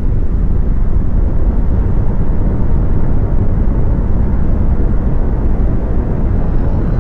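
Loud, steady, deep rumbling roar with no clear pitch, mostly low: the rumble of a comet fragment plunging toward impact.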